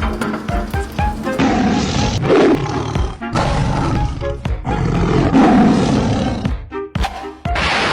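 Cartoon background music overlaid with loud, rough sound effects that come three or four times, each lasting a second or two.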